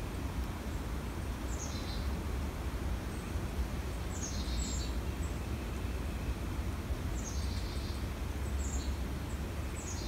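Carolina chickadees calling chick-a-dee-dee-dee several times, every two to three seconds. Each call is a high note sweeping down into buzzy dee notes, over a steady low rumble.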